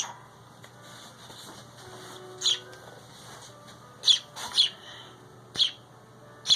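Pet bird chirping: about half a dozen short, sharp, high-pitched calls at irregular intervals, two of them close together a little past the middle.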